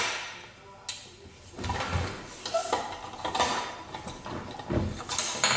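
Plastic parts of a manual meat grinder clicking, knocking and sliding against each other as they are handled and fitted together, in irregular knocks and scrapes.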